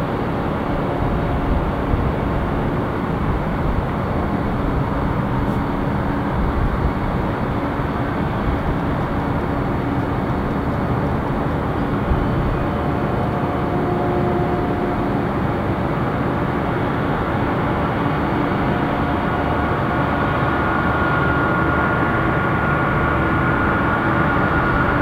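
A USAF VC-32A (Boeing 757) taxiing on its twin Pratt & Whitney PW2040 turbofans, a steady jet rumble and hiss. It grows slightly louder, and a faint whine comes in over the last few seconds as the jet turns to face the listener.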